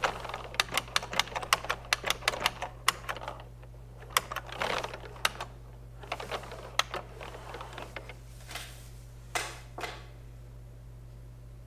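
Typing on a computer keyboard: quick runs of sharp key clicks that thin out and stop about eight seconds in. Two longer swishing sounds follow, over a steady low hum.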